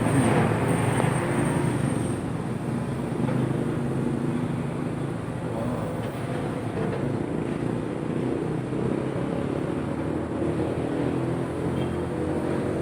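Backhoe's diesel engine running steadily, a little louder in the first couple of seconds.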